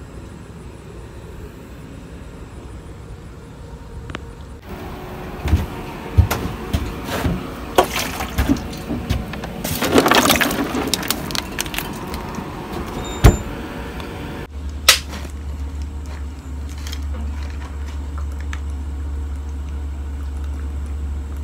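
A gloved hand rummaging through a cooler packed with ice, bottles and a plastic water jug: ice and bottles clatter and knock, in a busy burst about halfway through with one sharp knock. Then a steady low rumble sets in for the rest.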